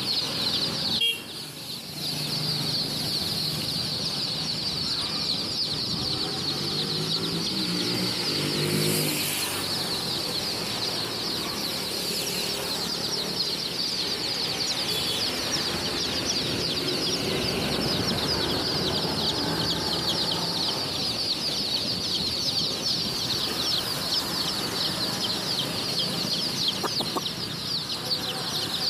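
A large flock of young chicks peeping nonstop, a dense chorus of high, rapid cheeps that thins briefly about a second in.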